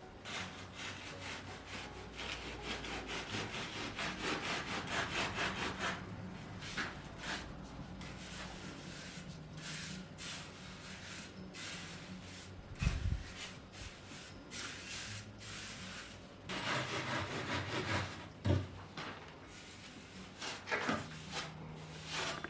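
Quick back-and-forth rubbing strokes on a hard surface, as in hand sanding or rubbing down a surface, in runs with a sparser stretch in the middle. There is a single low thump about 13 seconds in.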